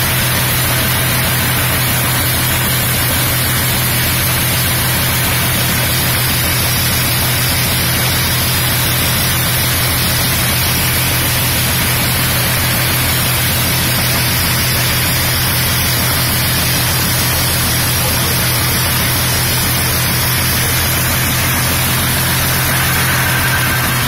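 Tractor-powered maize thresher running steadily while cobs are fed into it: a low engine hum under a loud, even rushing noise from the threshing drum and blower.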